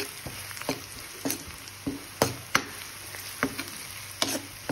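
Onions sizzling in hot mustard oil in a kadhai while a spatula stirs them, scraping and knocking against the pan about ten times at an uneven pace.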